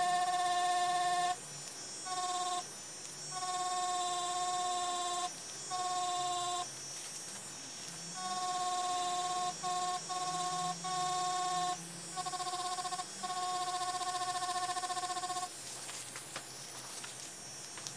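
DragonHawk Mast Archer wireless rotary tattoo machine running with a steady buzzing hum as its needle works colour into fake skin. The hum cuts in and out repeatedly and stops for the last couple of seconds.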